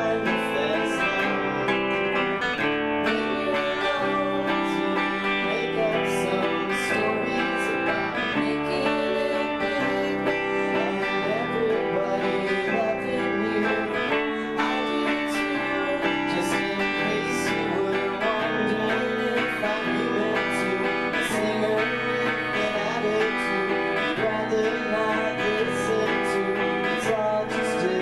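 A live band playing a guitar-led song with no drums.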